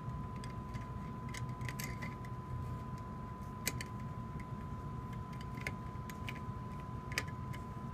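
Quiet room background with a low steady hum and a thin steady whine, broken by a few scattered soft clicks.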